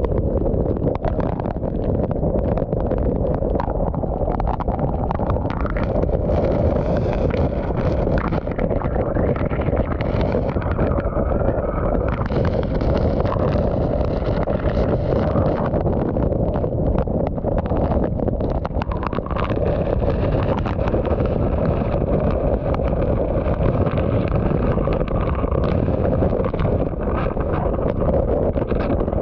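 Hurricane-force wind and heavy wind-driven rain buffeting a vehicle, heard from inside the cabin as a loud, steady rush of noise.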